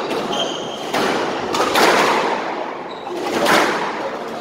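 Squash rally: the ball is struck by rackets and smacks off the court walls about three times, each hit echoing in the enclosed court. There is a short sneaker squeak on the wooden floor near the start.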